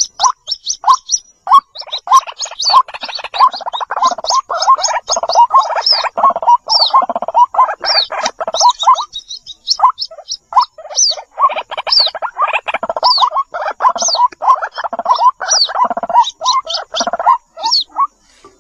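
White-breasted waterhen chicks calling for the mother bird: many short, high, falling peeps layered over dense, rapidly repeated lower notes, thinning out for a moment about halfway through.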